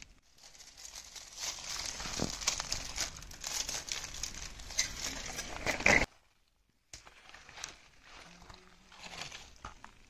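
Aluminium foil and plastic sheet crinkling under hands handling a marinated whole chicken. The crackling is dense and loudest just before it cuts off about six seconds in; softer crinkling resumes a second later.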